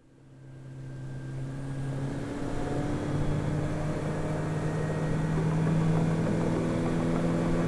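An engine running steadily, fading in; its pitch steps up about two seconds in and then holds.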